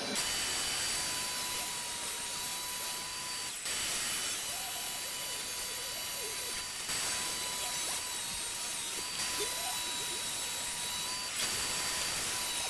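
DeWalt jobsite table saw running, a steady high motor whine over a rush of noise, shifting abruptly a few times.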